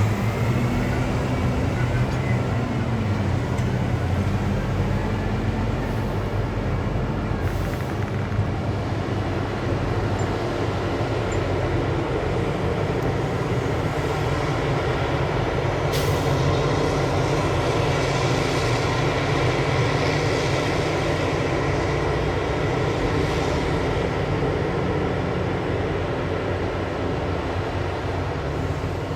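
Diesel engines of heavy mining machines, a giant hydraulic excavator and haul trucks, running steadily, with a single brief sharp click about halfway through.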